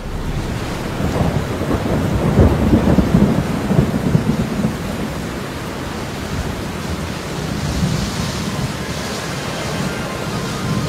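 Thunderstorm: steady rain with rolling thunder, the rumble loudest from about a second in to about five seconds in.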